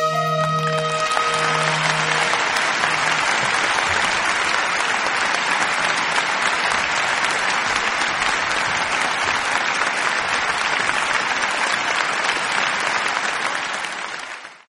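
Audience applauding in a theatre as the last notes of the music die away in the first couple of seconds; the applause then fades out near the end.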